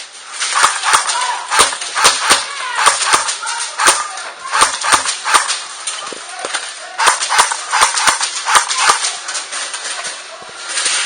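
Airsoft guns firing: sharp, irregular snapping shots, singly and in quick clusters, busiest in the first half and again around two-thirds of the way through, thinning out near the end.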